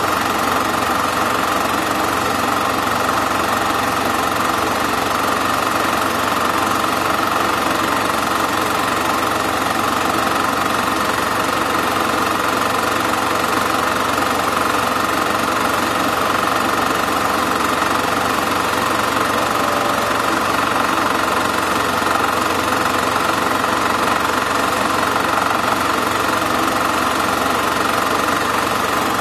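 Super 8 film projector running steadily: the even mechanical noise of its motor and film transport, picked up while the silent film was being copied.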